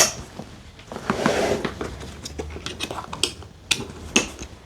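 Plastic clips on a fabric gym bag being fastened: a sharp click at the start, a rustle of the bag about a second in, then several short clicks near the end.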